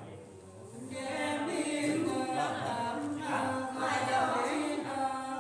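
Women singing a Nùng folk song unaccompanied, several voices together in long, drawn-out notes; the singing grows louder about a second in.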